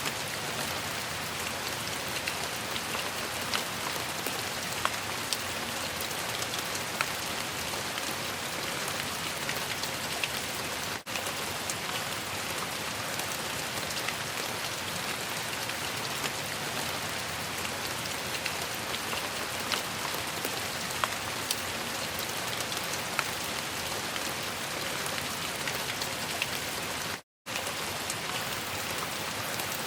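Steady rain falling, an even hiss with many individual drops ticking sharply. Near the end the sound cuts out for a split second.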